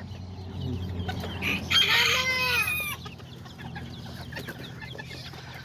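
A small bantam rooster crowing once, about two seconds in, the crow lasting a little over a second.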